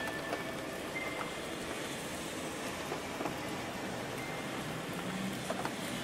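Steady rain-like white-noise hiss with scattered drops ticking through it, and a faint high chime tone briefly about a second in.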